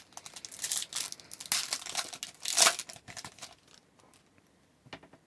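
Trading card pack wrapper being torn open and crinkled by hand: a run of crackling rustles for about three and a half seconds, then a single faint rustle near the end.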